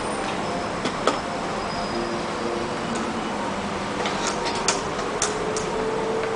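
Scattered light clicks and knocks of a DB25 cable connector and cables being handled and plugged into the back panel of a laser light unit, over a steady background hiss. Most of the clicks come in a cluster about four to five seconds in.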